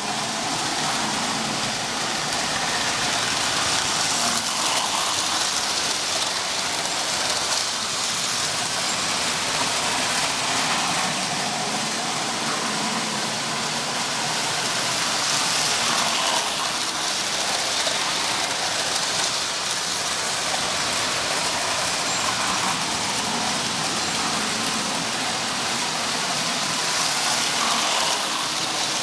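Lionel O-gauge toy trains, among them an Illinois Central GP-9 diesel, running on three-rail tubular metal track. A steady rolling noise of the wheels on the rails swells every few seconds as a train passes close.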